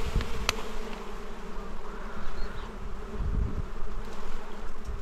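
A swarm of dwarf honeybees buzzing in a steady hum around their small wild nest as it is being taken. Irregular low rumbling and a sharp click about half a second in come from handling near the microphone.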